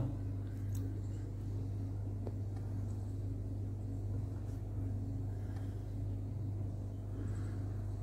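A steady low hum with a couple of faint light clicks.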